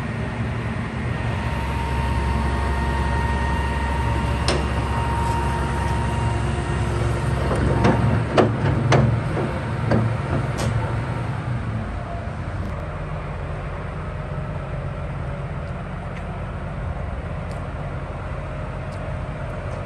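Hitachi ZX350LCN-3 excavator's six-cylinder diesel engine running with its hydraulics working as the machine lowers itself, with a steady whine for a few seconds. Several loud metal clanks come about eight to ten seconds in as the tracks set down on the paving, after which the engine settles to a quieter, steady run.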